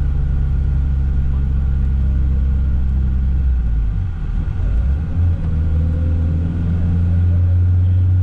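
Car engine and road noise heard from inside a moving car: a steady low drone whose pitch shifts up about four to five seconds in.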